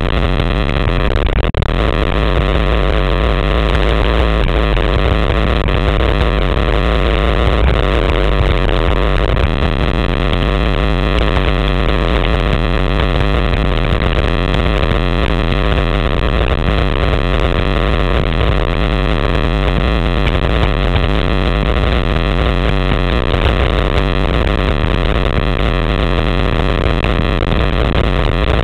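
Steady rushing wind noise on the microphone of a handlebar-mounted camera as a road bike descends at speed, with tyre hum on the asphalt underneath.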